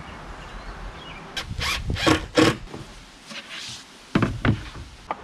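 Handling sounds of glue-up woodwork: a wood glue bottle being squeezed and a wooden edge strip being set and pressed against a plywood board. They come as a few short scrapes and knocks, the loudest bunched near the middle and one more just after four seconds.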